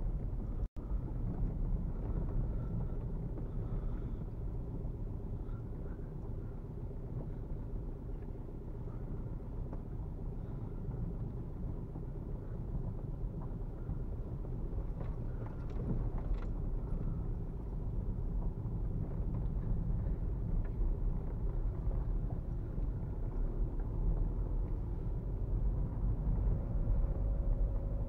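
Inside the cabin of a VW Golf Mk4 as it drives on a rough dirt track: the 1.9 TDI four-cylinder turbodiesel runs at low revs under a steady low rumble from the tyres and suspension. There are a few light knocks around the middle, and the engine note comes through more clearly near the end.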